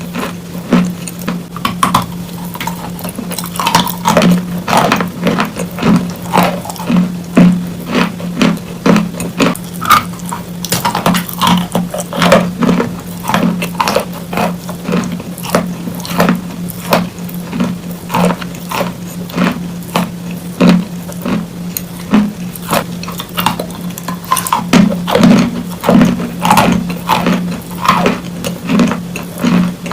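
Close-miked chewing and crunching of wet chalk: irregular crisp crunches and wet clicks, several a second, over a steady low hum.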